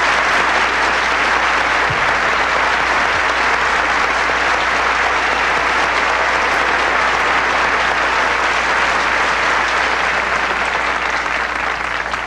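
Audience applauding, long and sustained, starting to die down near the end.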